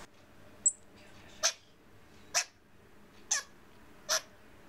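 A small animal giving short, sharp calls at a steady pace, just under a second apart: four of them, with a brief high chirp before the first.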